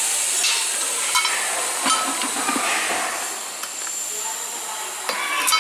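Steady high hiss of compressed air in a tyre shop, easing off a little past halfway, with a few sharp clicks and knocks of wheels and tools.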